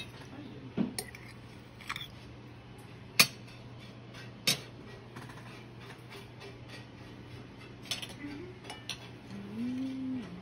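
Cutlery clinking against ceramic plates: about five sharp separate clinks, the loudest about three seconds in.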